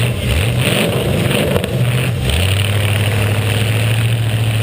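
Demolition derby car engine running with a low drone; its pitch shifts up and down over the first two seconds or so, then holds steady.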